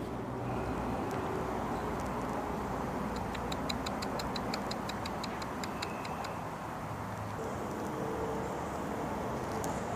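A rapid, even run of short high chirps from a wild animal, about seven a second for some two and a half seconds starting about three seconds in, over a steady background of distant traffic noise.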